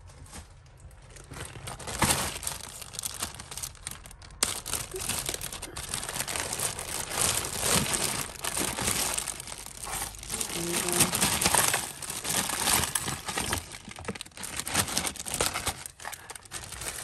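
Clear plastic bag of mixed costume jewellery crinkling and rustling as it is handled and opened, in a dense run of sharp crackles.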